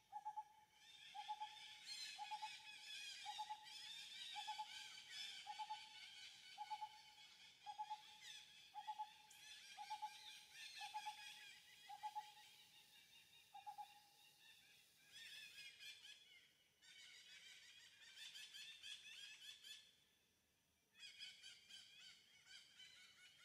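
Birds calling: one repeats a short hooting note about once a second, stopping about 14 seconds in, over a dense chorus of high chirps and twitters that breaks off and resumes abruptly a few times.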